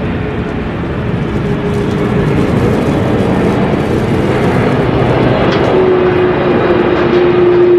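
Jet airliner's engines running as it rolls along the runway after landing, a broad roar growing louder. About six seconds in, a steady whine joins it and falls slightly in pitch.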